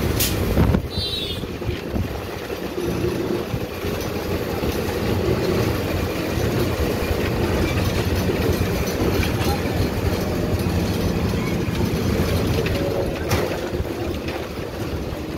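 Steady low rumble of a moving vehicle with road and wind noise, heard from on board while it drives along. Two sharp clicks break it, one right at the start and another near the end.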